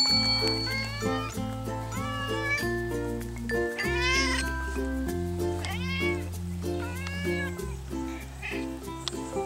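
Domestic tabby cat meowing repeatedly, short calls that rise and fall in pitch, the loudest about four seconds in, over light background music.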